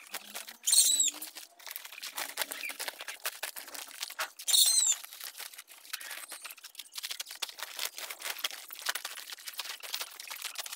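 Plastic flex sheet pond liner crinkling and rustling as it is trodden down and smoothed by hand. A bird gives a short hooked call twice, about a second in and again about four and a half seconds in, louder than the rustling.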